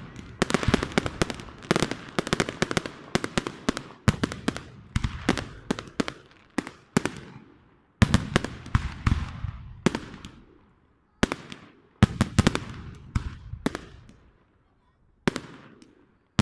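Aerial firework shells bursting in rapid volleys of sharp bangs, stopping briefly three times.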